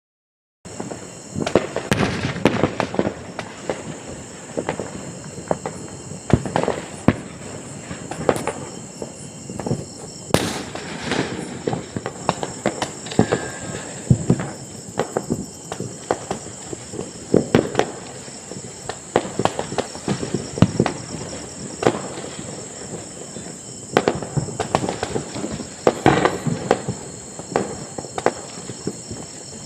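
Distant firecrackers and fireworks going off at night, irregular bangs and crackles that overlap, some louder than others, with a sharper crack about ten seconds in. A steady high-pitched drone runs underneath.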